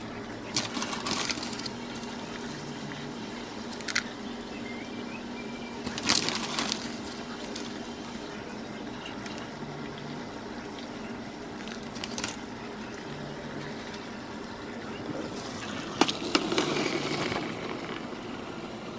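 Wax flakes poured in short rustling bursts into an aluminium pouring pitcher on a kitchen scale, over a steady low hum. Near the end comes a sharp knock and a louder rustle as the pitcher goes into the pot of water for the double boiler.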